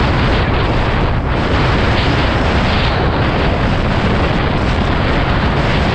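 Wind buffeting the microphone of a camera on a moving scooter: a loud, steady rushing noise with a heavy low rumble that covers any engine or road sound.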